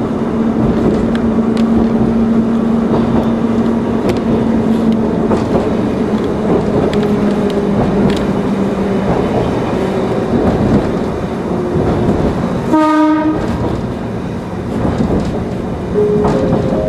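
Kumamoto Electric Railway 5000 series (ex-Tokyu "Green Frog") electric train heard from the driver's cab while running along the track: steady rail and wheel noise with a motor hum that fades about nine seconds in. A short horn blast sounds about thirteen seconds in.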